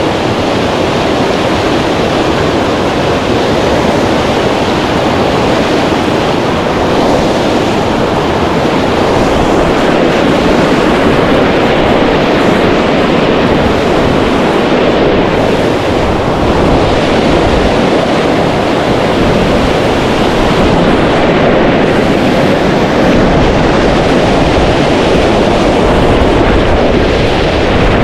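Loud, steady rush of a fast river at close range, mixed with wind buffeting the microphone.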